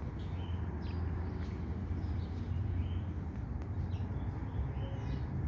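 Small birds chirping in short repeated calls over a steady low rumble of outdoor background noise.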